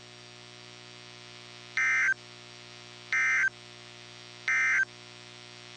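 Three short bursts of SAME digital data tones from a NOAA Weather Radio broadcast, each about a third of a second long and about a second apart: the Emergency Alert System end-of-message code closing the warning. A faint steady hum runs underneath.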